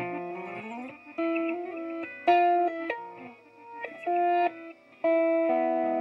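Electric guitar played through a BOSS DD-8 Digital Delay pedal in reverse mode, its echoes played back backwards. It plays a short phrase of held notes and chords, with a rising slide in the first second, and several notes cut off abruptly before the next begins.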